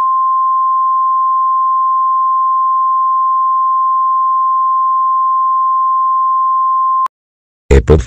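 A single unbroken alert tone of the kind used in emergency alert broadcasts: one steady, loud, pure pitch that holds without change and cuts off abruptly about seven seconds in. A voice starts speaking right at the end.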